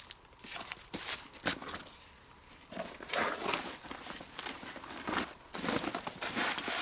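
Rustling of a fabric backpack and its straps as it is lifted and hung on a branch hook, with a few sharp clicks and knocks of handling.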